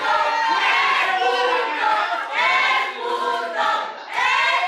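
Wrestling crowd chanting and shouting together, many voices rising in repeated swells about a second apart.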